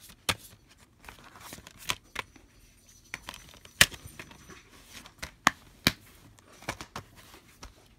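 Plastic DVD case being handled: a scattered series of sharp clicks and taps, the loudest about four seconds in, with faint rustling between.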